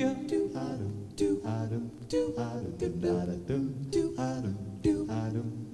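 Male a cappella group singing wordless backing parts: a bass voice holds low notes under short, rhythmic syllables sung by the other voices.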